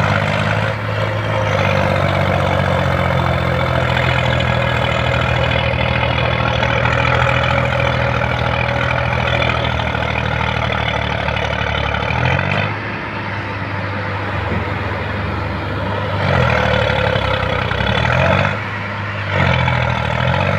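Heavy diesel engines of a combine harvester and a stuck tractor running hard under load as the combine tries to pull the tractor free. The note is steady and loud for about twelve seconds, then drops and is revved up and down about three times near the end.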